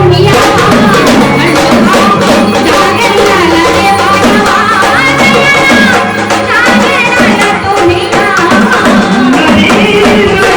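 Marathi gondhal folk music: sambal drums beaten fast under an organ melody.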